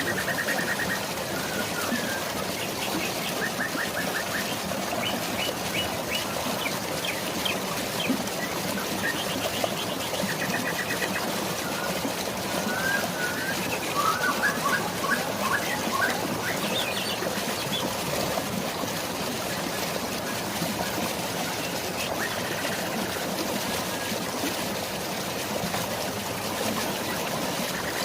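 Steady rush of flowing water, with birds chirping and trilling over it, most of the calls in the first two-thirds.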